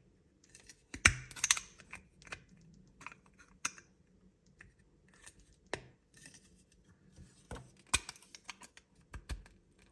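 Two-part plastic display stand of a snap-fit model being handled and pushed together: scattered sharp plastic clicks with light scraping and rustling in between.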